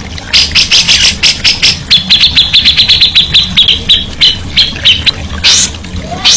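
Songbird singing: rapid repeated sharp high notes, then about two seconds in a fast, even trill of ticking notes for about three seconds, followed by a few harsher notes near the end.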